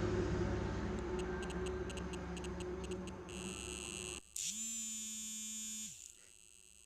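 Mobile phone vibrating with an incoming call: its vibration motor spins up, buzzes steadily for about a second and a half, then winds down. Before the buzz there is a low steady hum.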